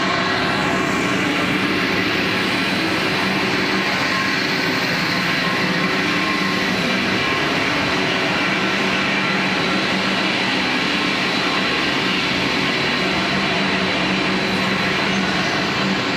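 Extruded snack-puff production line machinery running: a steady, loud mechanical din with a constant hum, unchanging throughout.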